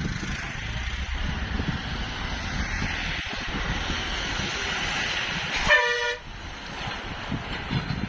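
Steady vehicle noise with a vehicle horn tooting once, briefly, about six seconds in.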